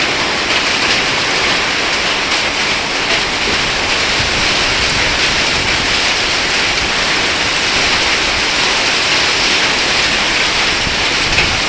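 Heavy storm rain pouring down with hail falling in it: a steady, dense hiss of rain at constant strength, with faint pattering impacts.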